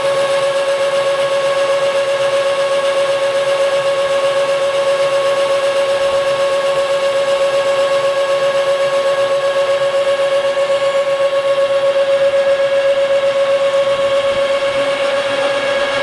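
Metal lathe taking a roughing cut along a large steel shaft, the tool peeling off a continuous chip. A steady high whine with several overtones holds the same pitch the whole time.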